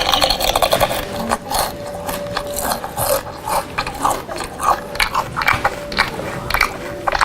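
Loud crunchy chewing amplified through a megaphone: a run of irregular crackling crunches, thin and tinny with no low end, over a faint steady hum.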